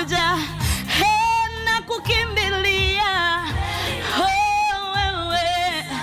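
A woman singing a gospel song over backing music with a steady low beat. She holds long, wavering notes, one about a second in and another past the middle.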